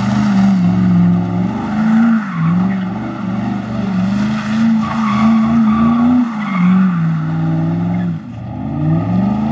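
Car doing donuts: the engine held at high revs, its pitch dipping and climbing as the throttle is worked, with tyres squealing and skidding. The revs drop sharply a little after eight seconds in, then climb again.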